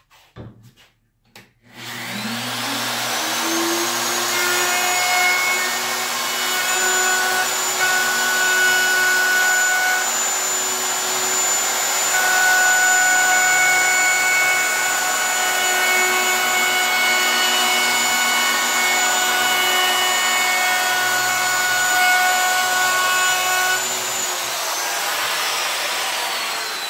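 DeWalt router with a flush trim bit running, trimming the edge of an MDF layer flush with the plywood below. The motor spins up with a rising whine about two seconds in, runs steadily through the cut, then is switched off near the end and its whine falls as it winds down.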